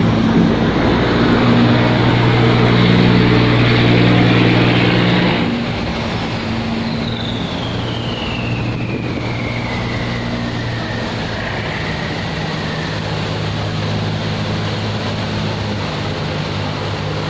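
Boat engines running steadily: one passing close, loud for about five seconds before it drops away, then a second boat's engine carries on more quietly over rushing water. From about seven seconds in, a high whine slowly falls in pitch.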